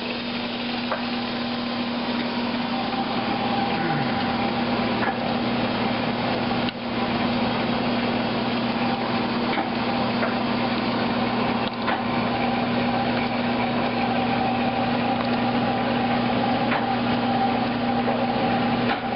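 Chinese oil press running steadily as it crushes canola seed: a continuous machine hum with several fixed tones under a dense grinding noise, with a few faint clicks.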